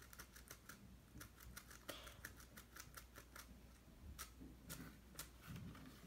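Fingers brushing a patch of two-colour flip sequins on a board-book page: a quick run of faint clicks, about five or six a second, thinning after about three and a half seconds to a few scattered clicks.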